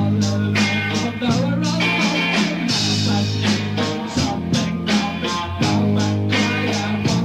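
Rock band music: guitar over a bass line and a steady, regular drum beat.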